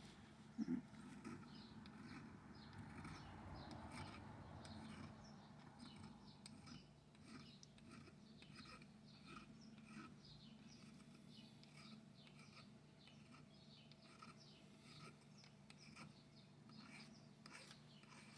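Faint, light strokes of a flat file on the commutator of a small 12-volt DC motor's armature: short scrapes repeating irregularly over a low steady hum. A brief knock about a second in is the loudest sound.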